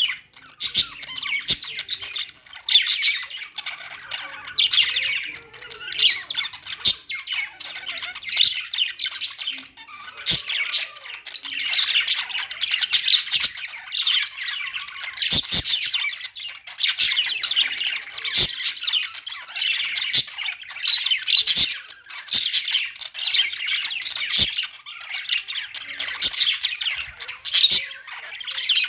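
Budgerigars chirping and warbling in a steady stream of fast, squawky chatter, with sharp clicks every few seconds.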